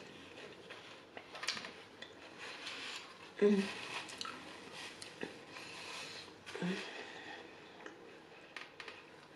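Close-miked eating sounds: soft mouth sounds and swallowing, a paper napkin rubbed across the mouth about a third of the way in, and light clicks and scrapes of a fork in a foam takeout container near the end.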